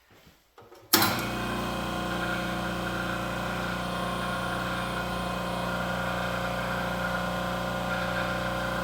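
Home-built hydraulic press's pump motor switching on about a second in and running steadily with an even hum.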